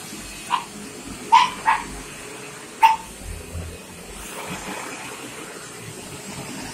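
Dog barking four short, sharp barks in the first three seconds, excited by an upright vacuum cleaner that runs with a steady drone underneath.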